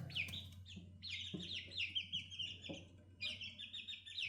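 Five-week-old chicks peeping in quick runs of short high notes, with a few soft knocks in between.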